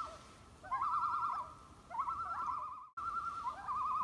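A bird's quavering call repeated about once a second: each call is a short upward swoop into a fast-wavering tone, with a brief gap about three seconds in.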